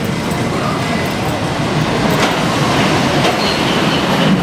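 A roller coaster train running along a wooden coaster's track, a steady rumble with scattered clicks that grows slightly louder.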